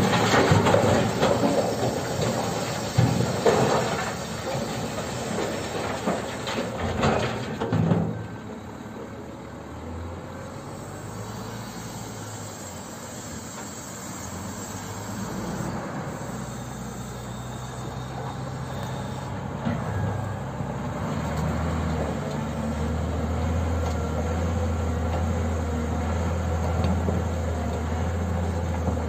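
Stone clattering out of a Volvo L180 wheel loader's bucket into a dump truck's steel bed, loud and rattling for about the first eight seconds. After that, diesel engines run on their own: the loaded truck pulls away and the loader drives into the rock pile, its low engine hum growing steadier and louder about three quarters of the way through.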